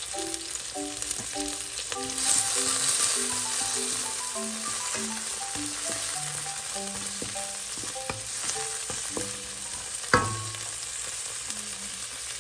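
Chopped onion and tomato sizzling in hot oil in a nonstick wok as they are stirred, the sauté base for mung bean stew; the sizzle swells about two seconds in. One sharp knock near the end.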